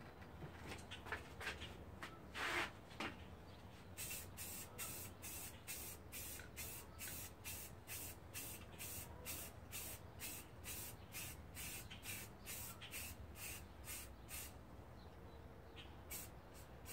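Aerosol spray can of primer fired in short, even bursts, about two hisses a second, for some ten seconds in the middle, with a few scattered bursts before and near the end. The can is splattering the primer rather than laying down a fine mist.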